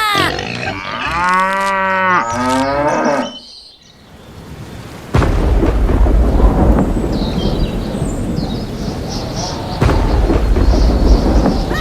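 A few drawn-out, wavering calls like cattle mooing, then from about five seconds in a loud, steady, deep rumble like thunder, which swells again near the end.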